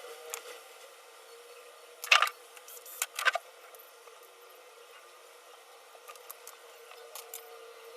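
Two sharp plastic cracks about a second apart, each a quick cluster of clicks: the glued plastic case of an Apple laptop charger being split open with expanding pliers.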